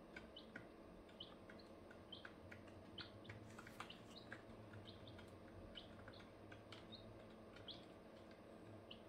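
Four-day-old ducklings and chicks peeping faintly. The peeps are short and high, scattered a couple or more a second, with a few light clicks among them.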